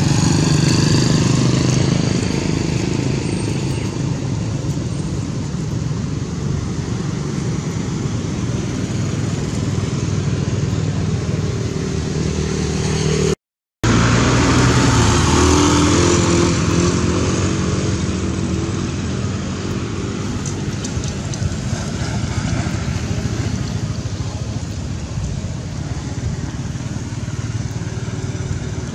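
A motor engine running steadily, with a short break about halfway through and a louder swell just after it.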